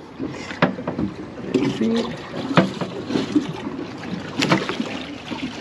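Scattered knocks and clatter on a small fishing boat, about five sharp strikes, over a steady haze of wind and water.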